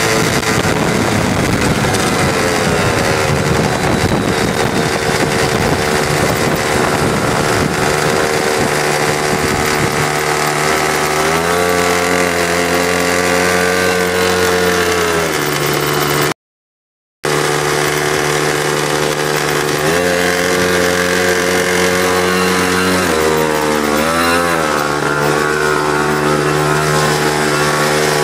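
X-1 pocket bike's small two-stroke engine running under way, its pitch falling and rising as the throttle is eased and opened, with wind on the microphone in the first half. All sound drops out for a moment just past halfway, then the engine runs on, revving up and down a few times.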